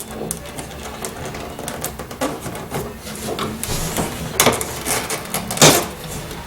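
Rapid clicking of a ratchet wrench working a battery terminal bolt loose to disconnect the battery, with a few louder metal knocks.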